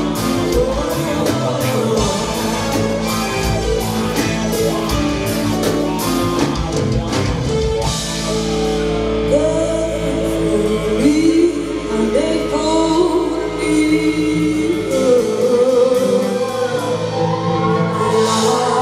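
A woman singing live into a microphone over a band playing pop-rock. Drums and guitar play for about the first eight seconds, then the drums drop out and her voice carries on in long held notes over sustained backing.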